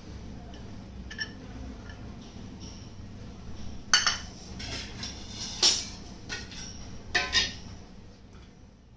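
Kitchen utensils clinking: a spatula and a steel bowl knock against dishes while grated carrot is scraped out onto a ceramic plate. There are a few sharp, ringing clinks in the second half, above a low steady background.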